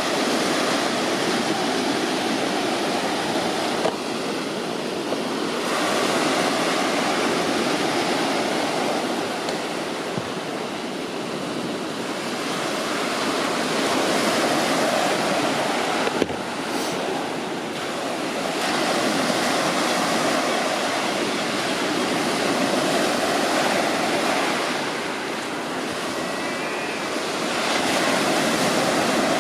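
A steady rushing noise that swells and eases every few seconds.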